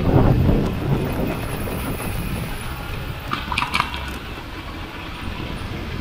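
Wind buffeting the microphone of a camera on a moving e-bike, over steady road and traffic noise, with a strong gust at the start. A brief rattle of clicks comes a little past halfway.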